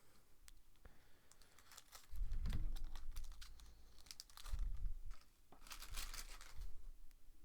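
Foil trading-card pack wrappers being cut open with scissors and handled: crinkling and tearing with small clicks, and a couple of dull bumps about two and four and a half seconds in.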